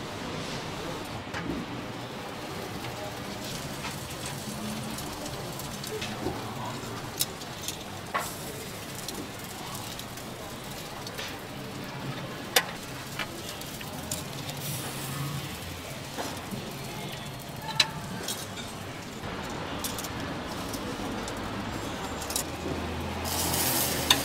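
Pork cooking in a food-stall kitchen: a steady sizzle with a few sharp clinks of utensils, and a louder burst of hissing near the end.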